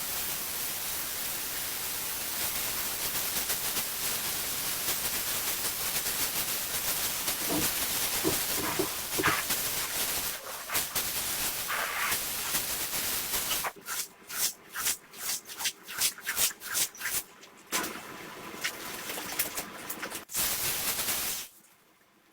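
A hissing spray jet, as from a cleaning wand on a carpet, running steadily. About halfway through it is cut on and off in a quick series of short bursts, then runs again briefly before it stops just before the end.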